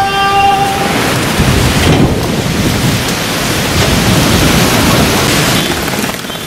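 Gusty storm wind rushing through thrashing tree branches with rain, loud and dense, easing a little near the end. A held pitched note sounds over it and ends about a second in.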